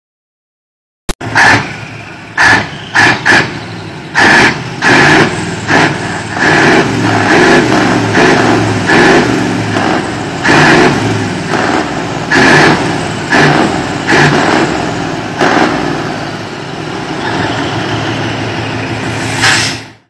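Iveco TurboStar V8 diesel truck engines with open exhaust stacks, revved hard in repeated sharp throttle blips, some short and some held for about a second. Between the revs they drop back to a rough, steady run.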